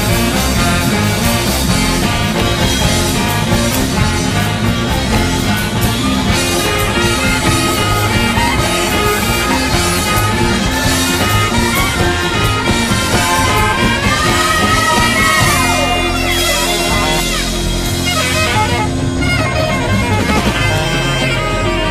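Backing music with a steady beat and a bass line. A lead line glides up and then back down in pitch about two-thirds of the way in, after which the beat thins out over a held low bass note.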